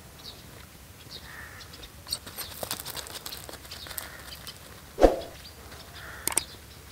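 Small birds chirping faintly while a dog's paws patter and scuff on gravel as it runs off, with one sudden thump about five seconds in.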